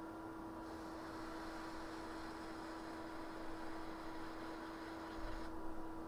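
Steady electrical hum from microsoldering bench equipment, with a soft hiss that comes in about half a second in and stops near the end.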